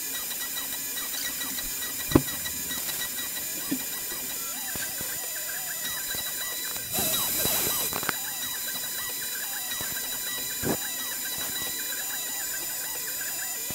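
CNC router spindle whining steadily as a small bit cuts into plywood, with a few short sharp clicks. About seven seconds in, a louder hissing stretch lasts about a second.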